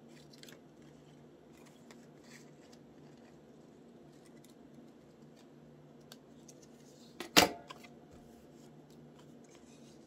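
Scissors snipping through thin paper leaf cut-outs, faint and sparse, with one sharp knock about seven seconds in that is the loudest sound.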